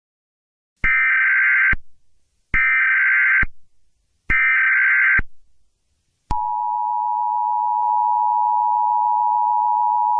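Emergency Alert System header: three short bursts of digital SAME data tones, each about a second long, then the steady two-tone EAS attention signal starting about six seconds in.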